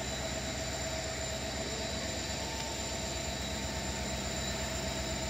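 Steady mechanical drone with several constant whining tones over a low hum, unchanging in level throughout, heard amid the railway tracks.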